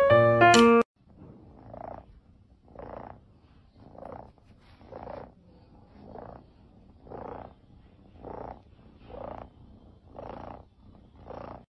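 A golden Scottish Fold kitten purring while being stroked, in soft pulses about once a second, one with each breath. Piano music cuts off just under a second in, before the purring starts.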